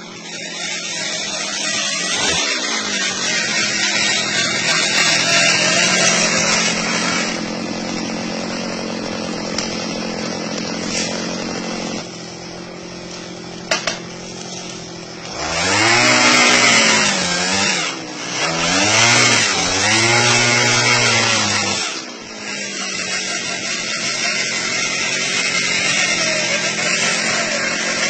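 Small petrol engine of an areca nut picking machine running steadily, revved up and back down twice in the second half.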